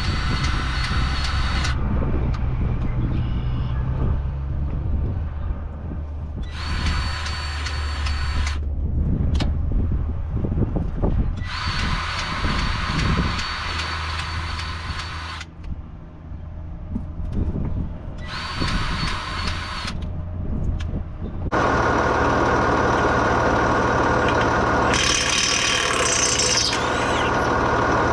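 Cordless grease gun running in four bursts of about two to four seconds each, pumping grease into the baler's fittings, over a low steady engine hum. About three-quarters of the way through, a louder steady engine sound takes over.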